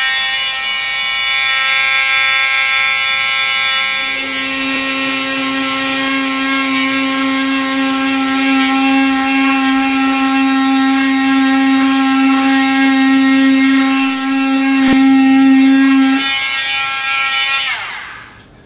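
Dremel oscillating multi-tool running with a steady high whine as its half-moon blade cuts the edge of a plexiglass aircraft canopy, at a speed set fast enough to melt the plastic as it cuts. From about four seconds in to about sixteen, a strong lower buzz joins the whine while the blade is in the plexiglass. The tool winds down near the end.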